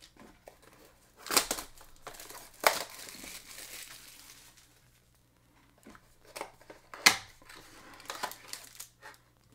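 Trading-card pack packaging being opened by hand: crinkling and tearing in irregular bursts, with a short pause midway.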